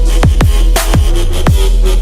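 Loud dubstep-style electronic music with heavy bass, punchy drum hits that drop in pitch, and sustained synth tones.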